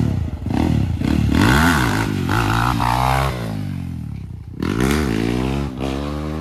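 Small motorcycle engine revving as the bike rides past, its pitch repeatedly falling and rising with the throttle, with a sharp new rev about four and a half seconds in.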